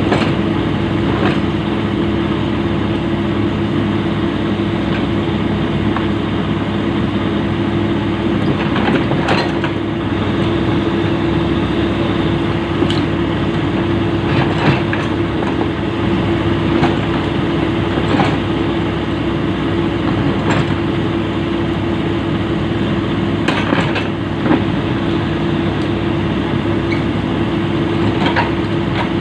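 Komatsu PC200 excavator's diesel engine running steadily, with scattered sharp metal clanks, several seconds apart, as the steel track is fitted.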